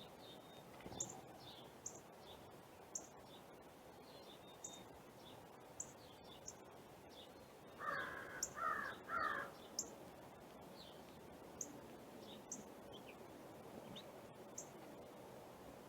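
A crow cawing three times, harsh and loud, about halfway through. Small birds give short high chirps about once a second throughout.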